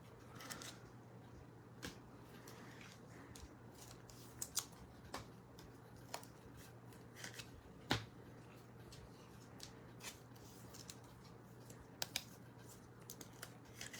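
Faint scattered clicks and snaps of trading cards and packs being handled, the sharpest about eight seconds in, over a steady low electrical hum.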